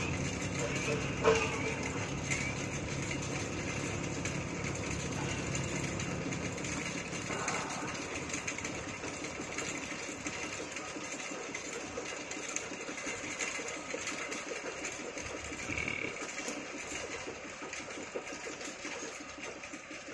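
A small engine running steadily with a fast, even clatter, its low hum fading somewhat over the second half. A single knock sounds about a second in.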